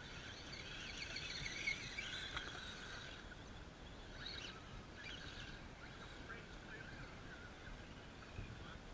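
Faint whine of RC rock crawlers' electric motors and gears as the scale trucks climb the trail, wavering in pitch, loudest in the first few seconds and then fading.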